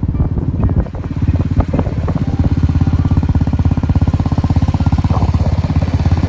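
Motor vehicle engine running steadily on the road, with a fast, even low pulsing.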